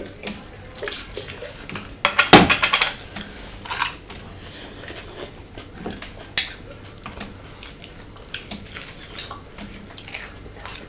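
Glass jar's screw lid being twisted open amid tableware clinking: a loud rattling clatter about two seconds in, then scattered clicks and taps against dishes.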